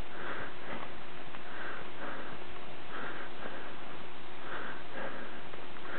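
Close breathing of a person walking uphill: paired in-and-out breaths about every second and a half, over a steady hiss.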